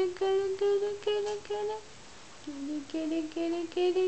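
A voice singing or humming a simple tune in short repeated syllables on nearly the same note, about three notes a second, pausing briefly about two seconds in.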